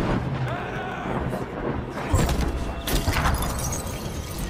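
Dramatic film sound mix: a deep, steady rumble under heavy rain, with two sharp hits about two and three seconds in.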